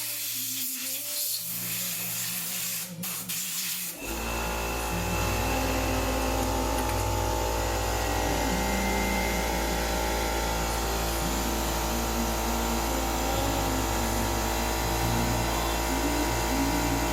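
A steady machine noise with a strong low hum starts abruptly about four seconds in and runs on without a break.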